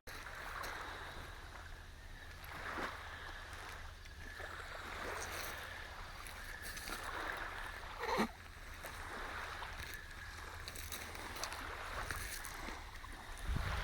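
Lake Erie waves washing against the shoreline: a steady rushing that swells now and then, over a constant low rumble.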